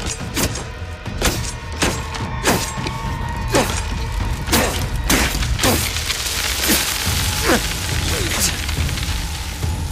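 Horror soundtrack: a low drone and a held tone under a series of sharp impact hits, roughly one every half-second to second, each trailing off with a falling pitch.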